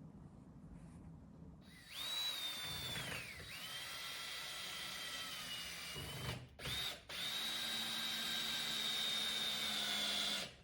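Power drill running in long runs, its motor whining high. The pitch drops a few seconds in as it comes under load. It stops briefly and gives a short burst, then runs steadily again until it cuts off.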